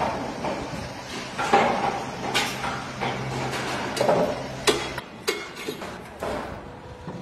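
A series of sharp knocks and clatters at uneven intervals, over a steady low hum that stops about five seconds in.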